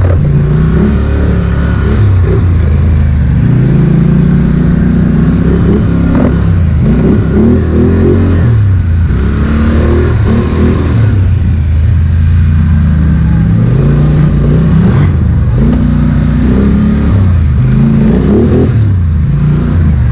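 Polaris Sportsman 850 XP ATV's twin-cylinder engine, heard from the rider's seat, revving up and easing off again and again with the throttle as it is ridden along a trail.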